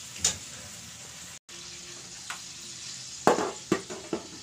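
Chicken pieces sizzling in a steel wok, with a metal lid knocking against the wok three times near the end, the first knock the loudest.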